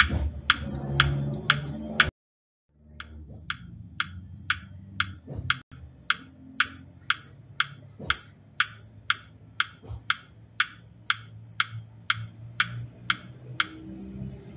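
Steady, even ticking, about two ticks a second, over a low hum. It cuts out briefly about two seconds in, then carries on at the same pace.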